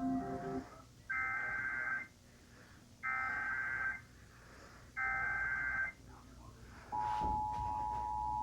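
Emergency Alert System tones: after the tail of a short chime, three bursts of SAME header data about a second long and a second apart, then the steady two-note attention signal starts about seven seconds in, marking the start of a tornado warning broadcast.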